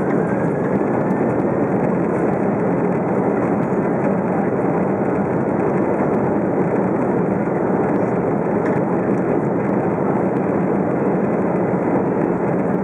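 Steady, loud cabin noise of an Airbus A330 moving along the ground: its jet engines and rolling noise heard through the fuselage at the window seat.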